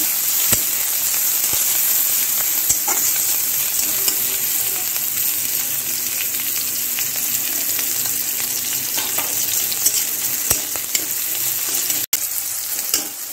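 Small shrimp sizzling steadily as they fry in mustard oil in a kadai, with a spatula stirring them and now and then clicking and scraping against the pan.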